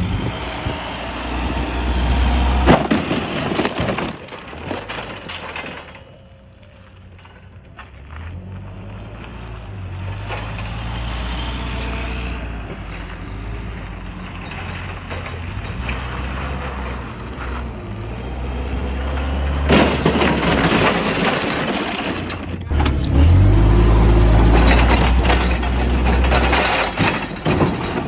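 Propane-fuelled Daewoo forklift engine running and revving as the forklift drives over and smashes a semi truck hood, with cracking and crunching as the hood panels break apart. The loudest stretches come a couple of seconds in and again through the last third.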